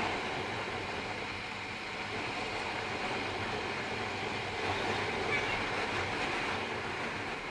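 Wind rush and road noise on an action camera's built-in microphone while riding a Bajaj Pulsar NS200 at highway speed, with the motorcycle's single-cylinder engine running steadily underneath.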